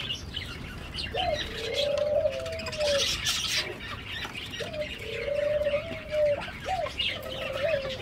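A dove cooing several times: long, low coos, each opening with a quick upward slide. Small birds chirp faintly in the background.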